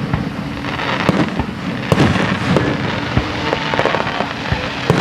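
Fireworks going off: a dense, continuous crackle with several sharp bangs about a second apart.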